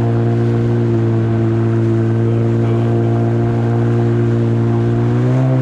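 Yamaha 30 hp two-stroke outboard motor with a jet unit running steadily under way, its pitch rising a little near the end.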